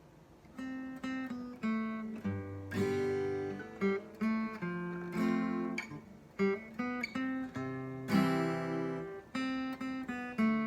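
Acoustic guitar playing an instrumental intro of picked notes and strummed chords, starting about half a second in.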